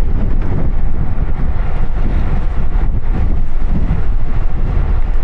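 Steady wind rumble on the microphone with road noise from a moving bicycle, loud and low, without a break.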